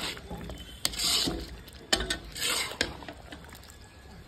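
Steel spatula scraping and clinking against a large black kadai as thick chicken fry is stirred: a few scraping strokes with sharp clinks about one, two and three seconds in, then quieter.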